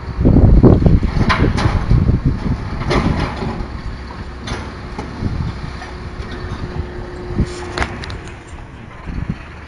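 Refuse truck emptying a wheeled bin at its rear: a loud low rumble of rubbish tipping in near the start, then metal clanks of the bin and lifter, and a steady hum from the lifter mechanism that ends in a sharp clank, over the truck's running engine.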